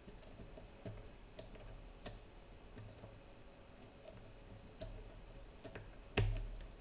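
Faint metal clicks of a pick working the pins of a 7-pin tubular lock, a few scattered ticks over several seconds, then one louder click near the end.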